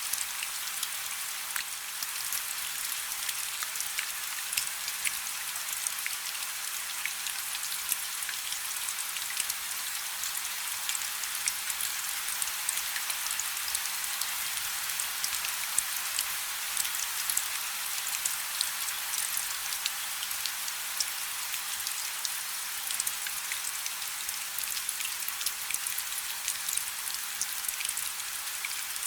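Steady rain falling, many sharp individual drop hits over an even hiss, with no thunder.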